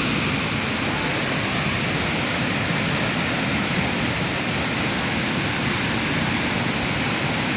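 Fast river and waterfall rushing: a steady, even noise of white water that does not change.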